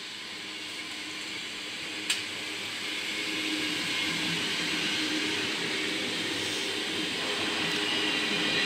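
NS ICMm (Koploper) electric multiple unit approaching and passing close by, a steady rush of wheels on rail with a low hum that grows gradually louder. A single sharp click about two seconds in.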